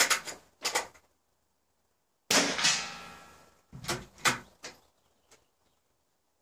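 A .22 small-bore running target rifle shot, a sharp crack with a long echoing tail, about two seconds in. Short clicks come before it, and a quick run of sharp clicks and knocks follows about a second and a half later.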